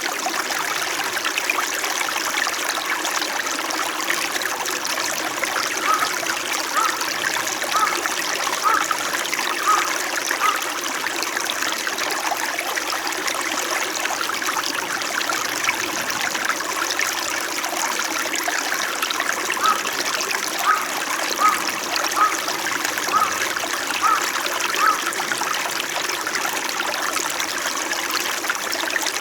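Small winter mountain stream flowing gently and steadily over rocks. Twice, a run of small regular plinks sounds over the flow, about one a second for several seconds.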